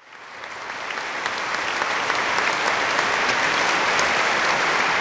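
Concert audience applauding, the clapping swelling up over about the first second and then holding steady.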